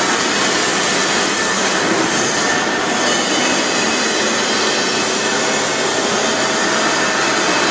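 Automatic stainless cylinder welding machine running, a loud steady hiss with no breaks.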